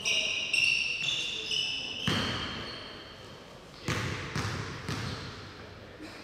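Basketball shoes squeaking on a hardwood gym floor, then a basketball bounced on the floor about five times from about two seconds in, each bounce ringing in the large gym.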